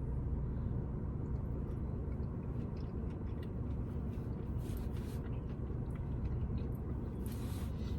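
A person chewing a spoonful of cheesy corn, with a few faint mouth clicks, over a steady low hum.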